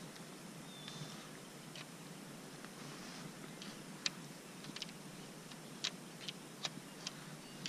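Faint steady background noise with about seven short, sharp light clicks in the second half, two of them close together.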